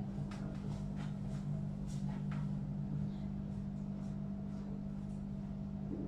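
Room tone: a steady low hum, with a few faint clicks and knocks scattered through it.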